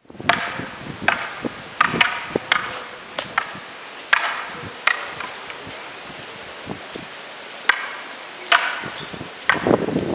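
Long wooden fighting staffs (Canarian garrotes) clacking against each other in irregular, sharp strikes. There is a short lull about halfway through before more strikes near the end.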